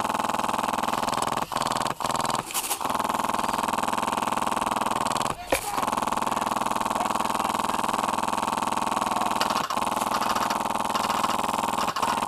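Airsoft electric rifle (AEG) firing on full auto in long sustained bursts, its gearbox making a loud, steady buzz. The buzz breaks off briefly a few times between bursts.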